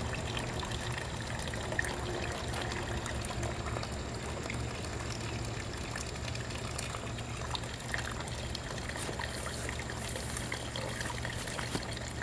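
Flood water pouring in a thin, steady stream out of the dipstick hole of a Yamaha R6 engine and splashing into a metal pan partly full of water. The crankcase has filled with water from the flood.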